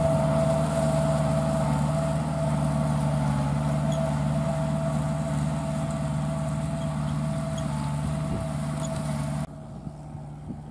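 Kubota L5018VN tractor's four-cylinder 2.4-litre diesel engine running steadily under load while driving a rotary tiller through dry rice stubble. About nine and a half seconds in, the sound drops suddenly to a much quieter level.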